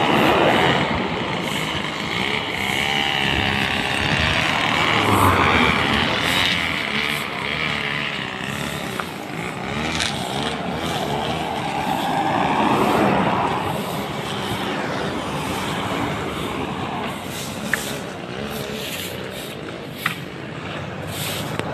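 Petrol brush cutter engine running, its revs swelling and falling as it cuts roadside weeds, with two sharp clicks near the end.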